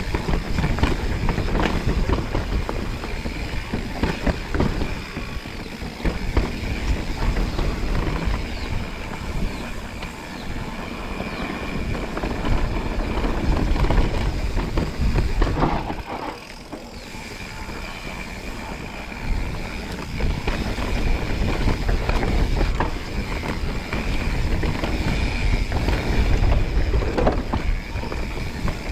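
Mountain bike descending a rough trail: wind buffeting the bike-mounted microphone, tyres and frame rattling over bumps with frequent knocks, and a steady high buzz that drops out for a few seconds about halfway through.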